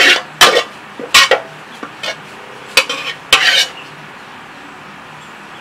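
Metal spatula scraping and knocking against a steel wok, about six sharp strokes spread over the first four seconds, as the last of the stir-fried beef is scraped out.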